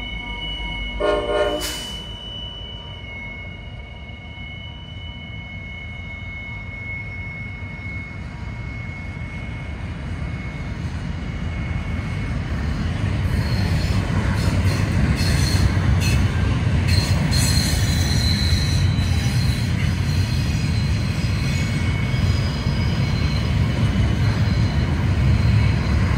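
Norfolk Southern train rounding a tight curve, its wheels squealing on the rails in steady high tones, with a short horn blast about a second in. The diesel locomotives' rumble then swells from about eight seconds in, with sharper wheel squeals from about thirteen seconds in.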